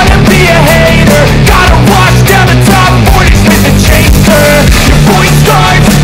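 Loud rock background music with a steady beat and a heavy bass line.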